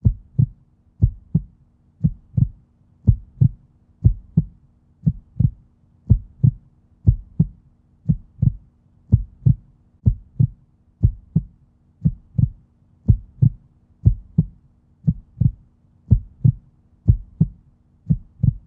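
Heartbeat sound effect: low double thumps, lub-dub, about one beat a second, over a faint steady hum.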